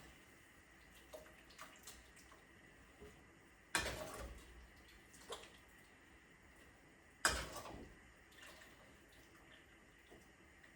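Water sloshing and splashing in a pot as blanching bok choy is moved in it, in two short bursts about three and a half seconds apart, with a few faint clicks between.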